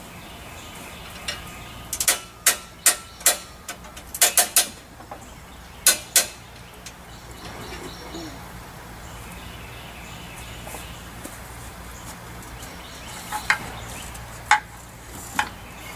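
Sharp metal clicks and clanks of the game hoist and its lifting straps being worked around an outboard motor: a quick irregular cluster of about ten in the first six seconds, then three more near the end.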